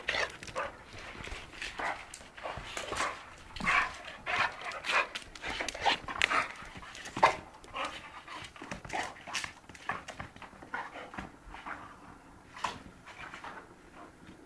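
Two young dogs play-fighting and wrestling, panting hard and making short, irregular play noises, the loudest about seven seconds in.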